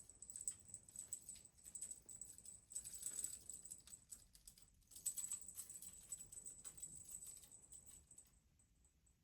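A cat at play with a wand toy, its paws and claws scrabbling and tapping on the floor: faint, quick, irregular clicks and taps in short runs that stop about eight seconds in.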